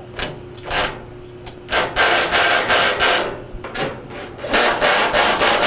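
Phillips screws being driven into the sheet-metal top panel of a dryer, a series of rasping, grinding bursts: two short ones, then two longer runs of about a second each.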